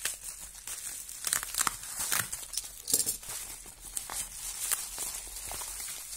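Bubble wrap crinkling and rustling as it is pulled apart and unwrapped by hand, with irregular sharp crackles throughout.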